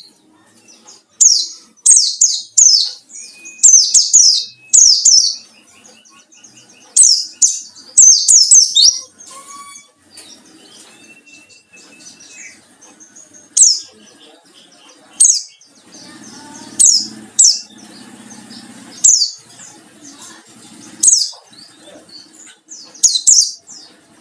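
Wild white-eye (pleci) singing: short, very high, rapid chirping phrases in dense clusters, then spaced single chirps from about ten seconds in. The song of a wild bird calling for a rival.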